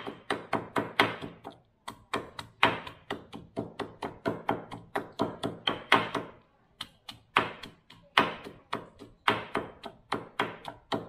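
Pestle pounding garlic and shallots in a mortar into a coarse spice paste: a steady run of thuds, about three or four a second, with two short breaks.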